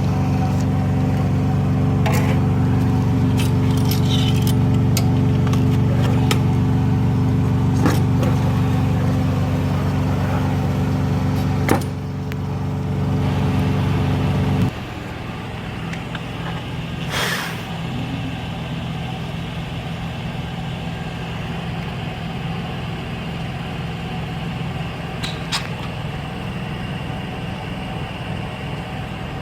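A car running with a steady low hum that steps down to a quieter hum about 15 seconds in, with scattered light clicks and a short hiss about 17 seconds in.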